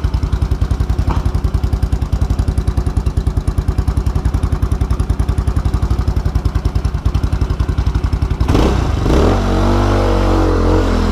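Motorcycle engine idling with an even, fast pulse, then pulling away about eight and a half seconds in and accelerating, its pitch rising.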